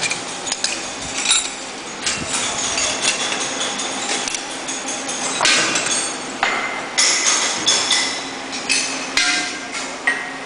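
Repeated metal-on-metal knocks and clinks at an irregular pace, as in hammering or handling metal pieces, over a faint steady hum.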